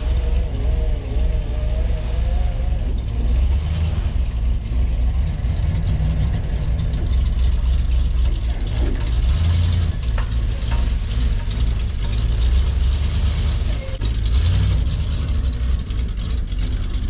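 Vehicle engine running steadily, a deep low rumble.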